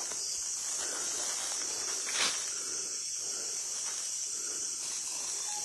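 A steady, high-pitched chorus of night insects, with faint rustling and one sharp click about two seconds in.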